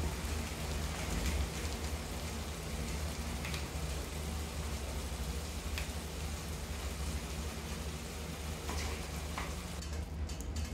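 Prawns frying in oil in a nonstick kadai over a gas burner: a steady, even sizzle with a few faint ticks.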